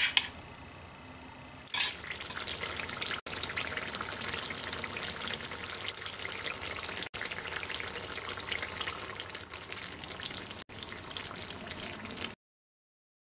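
Olive oil bubbling and sizzling with many small pops in a cast-iron skillet as chicken gizzards simmer for ajillo. It starts about two seconds in, drops out briefly three times, and stops abruptly near the end.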